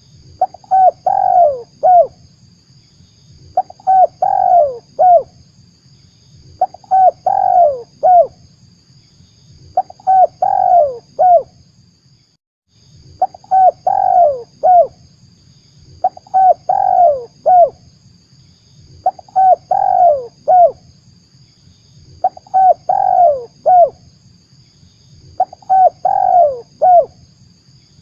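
Spotted dove (tekukur) cooing: a short phrase of several falling coos, repeated about every three seconds, nine times in all. It is the lure call used to draw wild doves in for trapping.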